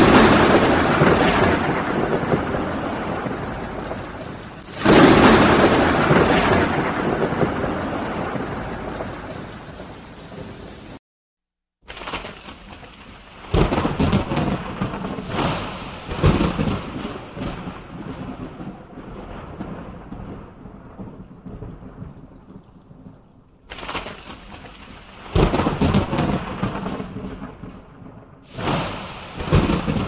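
Thunder: two loud claps, one at the start and one about five seconds in, each rolling away over several seconds. After a brief dropout, quieter rumbles and cracks come every few seconds over a steady rain hiss.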